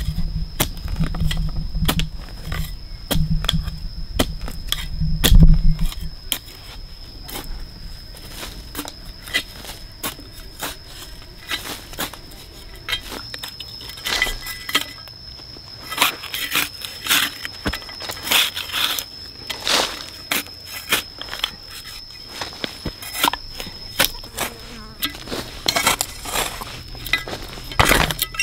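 Steady high-pitched drone of forest insects, with scattered sharp clicks and knocks over it. Low thuds in the first six seconds, the loudest about five seconds in.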